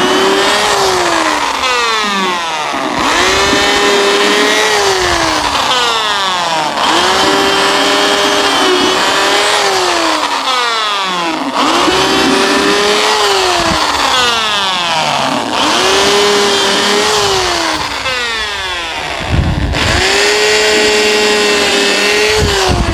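Corded electric drill with a 1/8-inch countersink bit boring pilot holes through seasoned eastern red cedar, one hole after another. Each time the motor speeds up, runs steady for a couple of seconds while cutting, then winds down as the trigger is let go, about every four seconds.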